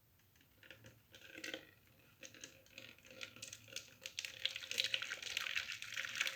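Faint clinks of a cooking pot being handled, then the boiled date-pit water starting to pour and trickle, growing louder toward the end.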